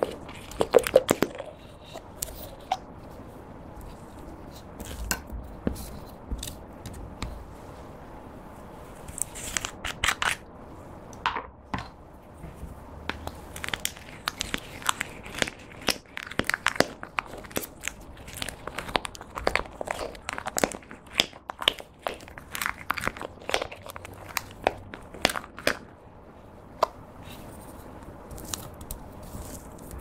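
Sticky, irregular crackles and clicks of thick glitter gel being squeezed from small plastic bottles and pushed around with a plastic stick on a clear plate.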